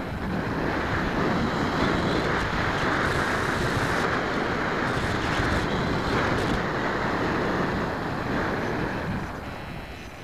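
Airflow rushing over the onboard camera of a radio-controlled model airplane in flight. It is a steady rushing noise that builds as the plane dives and eases off near the end as it climbs.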